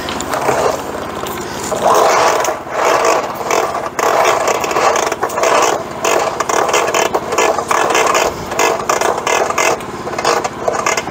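Portable bandsaw sawmill's gasoline engine running steadily, with an uneven scraping, rattling noise over it.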